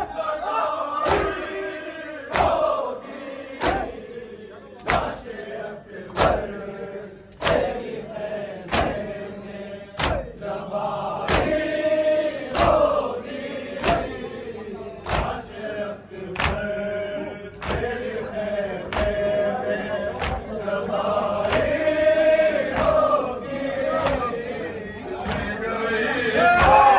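Shia matam: a crowd of men beating their chests in unison, one sharp slap about every second and a quarter. Between the slaps, men's voices chant a noha lament.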